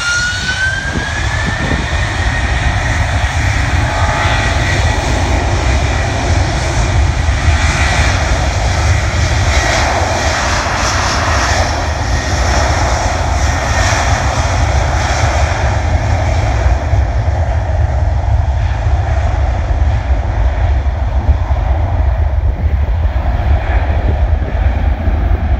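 Airbus A330-300's twin jet engines spooling up to takeoff power, a whine rising in pitch over the first two seconds, then a loud steady jet noise with a deep rumble as the airliner accelerates down the runway. The higher hiss fades in the second half as the plane moves away.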